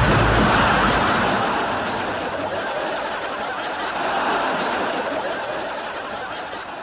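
The rumble of a comedy-sketch explosion dies away in the first second, under studio audience laughter that fades out gradually.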